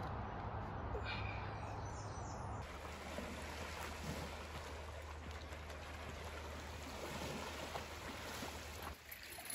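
Steady wash of moving water, like small waves on a lake shore, with an abrupt change in the sound about two and a half seconds in.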